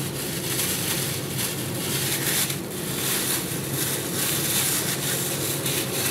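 A thin plastic bag crinkling and rustling as it is peeled off a ball of chilled dough, in a steady run of crackles.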